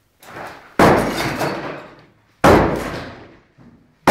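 Sledgehammer striking a plastered masonry wall during demolition: three heavy blows about a second and a half apart, each one dying away over about a second.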